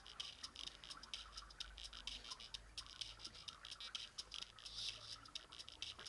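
Dubstep playing faintly and thinly through a pair of earbuds, heard mostly as an even, rapid ticking of its beat.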